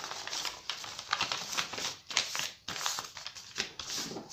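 A sheet of paper being handled, rustling and crinkling irregularly with small crackles.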